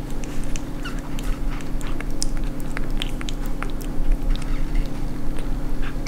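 Young English bulldog puppy smacking and licking at a cup of milk-thinned meat pâté: a scatter of small, wet mouth clicks over a steady low hum.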